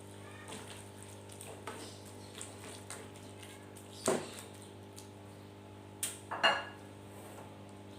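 A cooking utensil knocking and scraping against a pan as the food is stirred: a few sharp clacks, the loudest about six and a half seconds in, over a steady low hum.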